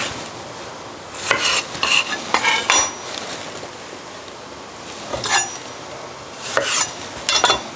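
Chef's knife slicing a tomato half on an end-grain wooden cutting board: a few short clusters of cutting strokes and blade taps on the board, with pauses between them.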